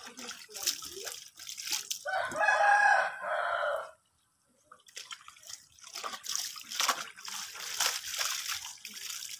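A rooster crows once, loud and for about two seconds, starting about two seconds in. Around it, water from a hose splashes into a basin of laundry being scrubbed by hand.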